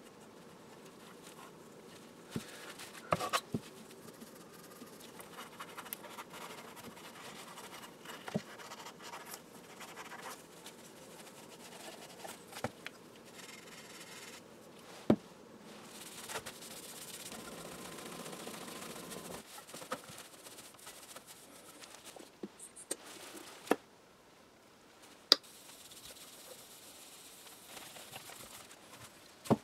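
Hand-cleaning of a crystal radio's hard black panel and its metal fittings: scratchy scrubbing and rubbing with steel wool and a cloth. A few sharp clicks and taps break into it, and there is a steadier stretch of rubbing a little past halfway.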